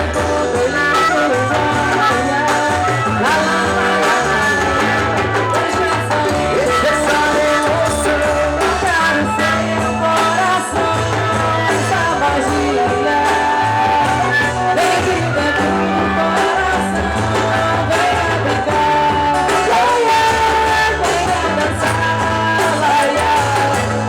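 Loud band music with a steady, repeating bass line and sustained melody notes, likely with singing.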